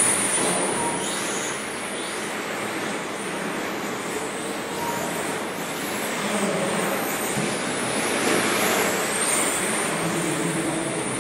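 Radio-controlled race trucks running laps, their motors giving a high whine that rises and falls as they speed up and slow down through the corners.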